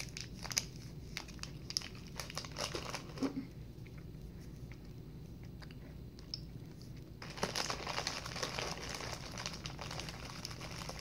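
Snack packaging being handled and crinkling: a few light clicks and rustles at first, then steady crinkling from about seven seconds in.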